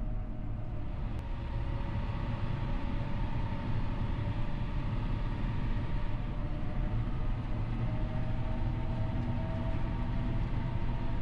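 John Deere 6R 215 tractor's six-cylinder diesel engine running steadily while pulling a no-till seed drill. A steady whine sits over the low engine drone.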